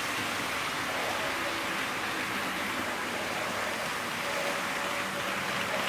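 HO scale model trains running on the layout: a steady rolling rumble of wheels on the rails, with a faint whine coming in about four seconds in as a goods train passes.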